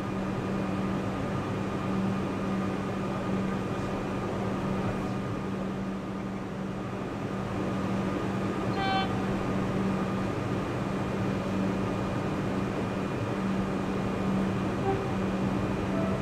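Steady electric hum of a suburban electric train standing at the platform, with a brief horn-like note about nine seconds in.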